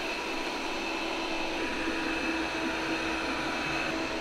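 Laresar robot vacuum-mop running, its suction motor giving a steady whir with faint steady tones through it.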